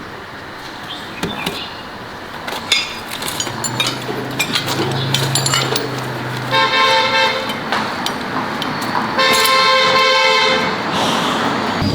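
A vehicle horn honks twice, each blast about a second long, after a few clicks and knocks and a low hum.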